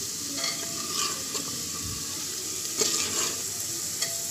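Sliced onions, fried light brown, sizzling in hot oil while a steel ladle stirs them, scraping and clicking against the metal pot several times.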